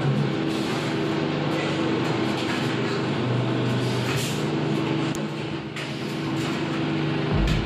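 Steel drum production line machinery running with a steady droning hum, with several short metallic clanks as steel drums and lids are handled.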